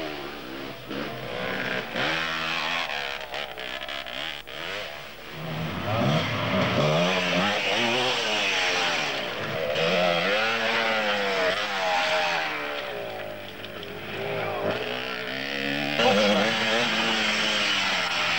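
Enduro motorcycle engines revving up and down as riders ride a hill-climb section past the camera, growing louder about a third of the way in and again near the end.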